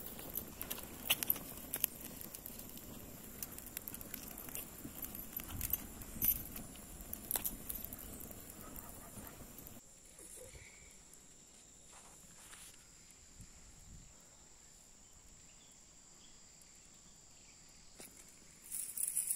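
Fire of dry twigs crackling, with many small irregular snaps and pops. About halfway through it becomes much quieter, with only a few faint snaps as the fire burns down to embers.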